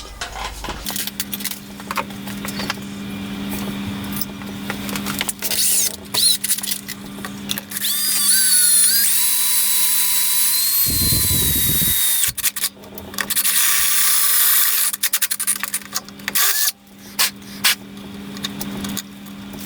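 Electric drill running and boring an 8 mm hole, its motor hum steady, with a high squeal in the middle while the bit cuts. It briefly stops and restarts a few times near the end.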